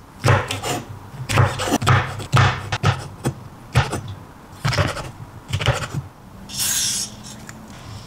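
Chef's knife chopping mushrooms on a wooden cutting board: about a dozen irregular chops, each a sharp tap with a dull thud of the blade meeting the wood. Near the end comes a short rustling scrape.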